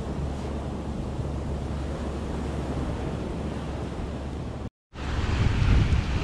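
Ocean surf with wind buffeting the microphone, a steady rumbling wash. Just before five seconds in it cuts out briefly, then comes back as louder, closer surf washing over shoreline rock.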